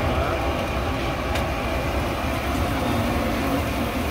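Commercial gas burner under a large wok of frying oil, burning with a steady, constant rushing noise and low rumble.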